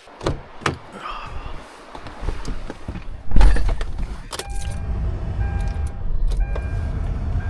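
A car is being started. First come a couple of sharp clicks, rustling and jangling keys. About three seconds in there is a loud sudden burst, then the engine settles into a steady low idle. From then on a pitched warning chime dings about once a second.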